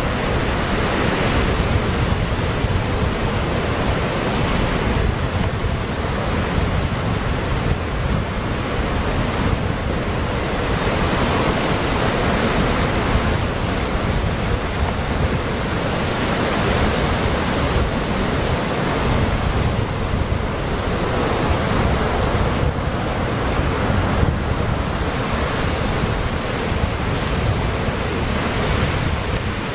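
Ocean surf breaking and washing over rocks and sand, swelling and easing as the waves come in, with wind rumbling on the microphone.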